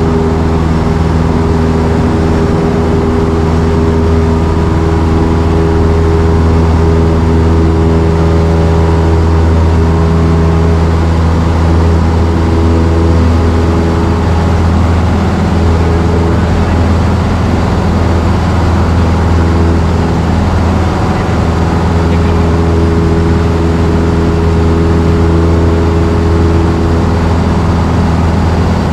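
Single-engine piston airplane's engine and propeller running steadily, a loud, even drone heard from inside the cabin.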